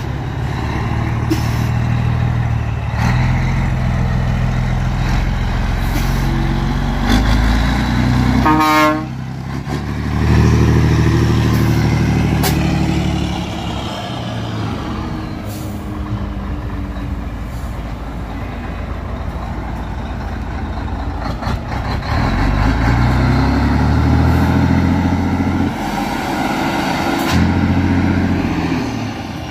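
Scania 113 truck's 11-litre straight-six diesel on a straight-through exhaust, pulling away with loud revs that climb and drop off several times between gear changes. About nine seconds in there is a short, stepped, rising run of tones.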